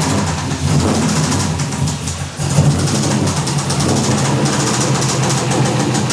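Drift car's engine running steadily around idle with a rapid knock through it, the sound of the rod knock its owner says the engine has.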